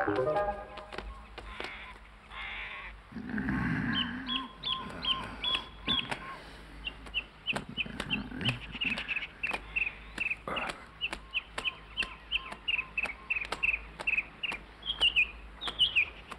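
Small bird chirping: a long run of short, high, downward-sliding chirps, a few a second.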